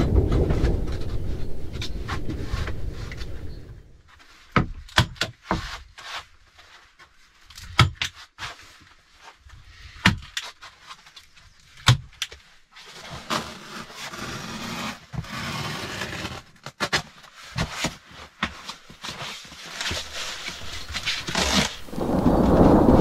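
A low rumble of thunder fades out over the first few seconds. Then come scattered sharp knocks and clicks with scraping and rustling as foam and rubber mats are laid and pressed onto a wooden bunk frame. Near the end the thunder rumble builds again.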